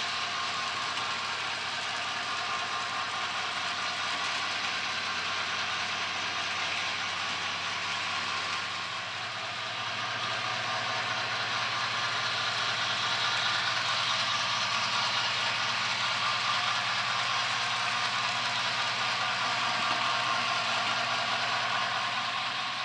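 HO scale model freight train running on the track: a steady rolling noise of the cars' wheels on the rails, getting louder about ten seconds in as the cars pass close by.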